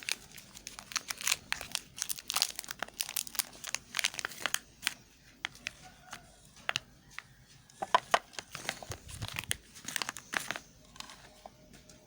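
Soap wrapper being torn open and handled: irregular crinkling and tearing crackles, busiest at the start and again about eight seconds in, sparse near the end.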